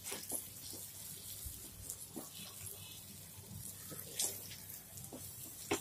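Soft scrapes and light clicks of bread being shifted on a flat iron griddle, with a sharper tap about four seconds in and another near the end.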